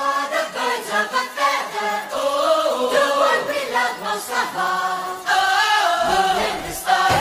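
Music: a choir-like song, with voices singing over the track.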